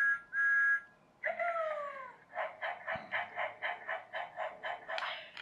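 Children's radio-controlled toy train playing its electronic sound effects: two short beeps, then a falling tone, then a quick electronic chuffing rhythm of about four pulses a second.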